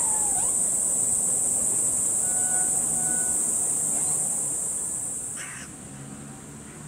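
Steady high-pitched buzzing of insects, fading down about five seconds in, with a few faint short calls over it.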